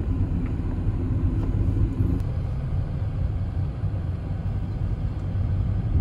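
Car cabin noise while driving slowly: a steady low rumble of engine and tyres on the road.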